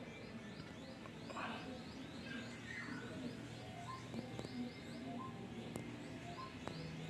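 Faint birdsong: a quick high chirp repeating about three times a second, with a few short whistled notes scattered over it.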